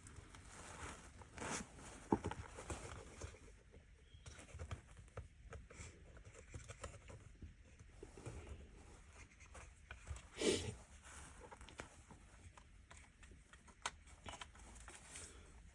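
Faint scattered clicks and rustles of small plastic switch buttons and panel parts being handled, with a sharper click about two seconds in and a brief rustle about ten seconds in.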